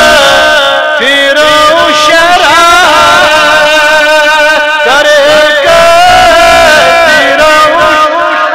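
A man chanting a devotional verse, drawing out long held notes with wavering ornaments.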